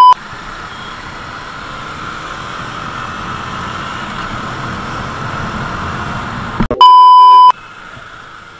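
A loud, steady test-tone beep from a TV colour-bars glitch transition. It cuts off just after the start and is heard again for under a second about seven seconds in. Between the beeps there is steady riding noise from a KTM Duke 250 motorcycle: its engine and wind on the camera microphone.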